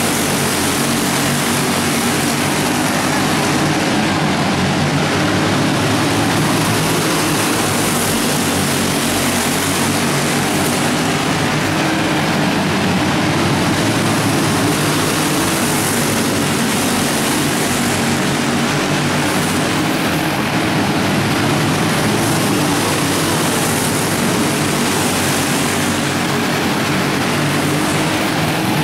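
Several racing go-kart engines running at speed as the pack laps the track, a steady, dense engine drone at an even level, carried inside a large enclosed arena.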